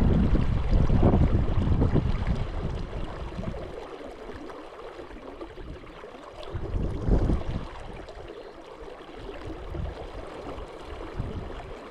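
Wind buffeting the microphone over the steady rush of a river. The wind is heavy for the first few seconds, then eases, with one more short gust about halfway through.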